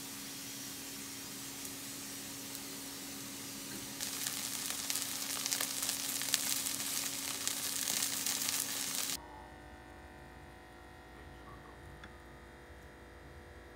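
Food sizzling in a hot frying pan: a steady hiss that grows louder and crackly about four seconds in, then cuts off abruptly about nine seconds in, leaving a low electrical hum.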